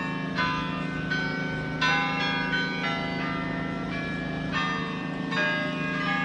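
Church tower bells ringing: a series of strikes at changing pitches, a new one every second or less, each note ringing on into the next.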